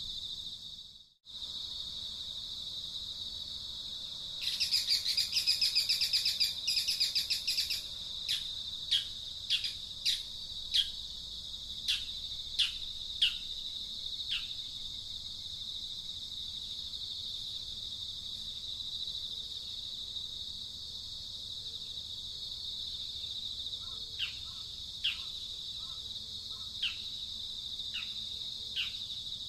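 Outdoor insect and bird chorus: a steady high insect drone, a loud fast pulsing trill for about three seconds, then a bird calling in short notes that each slide downward, in two runs.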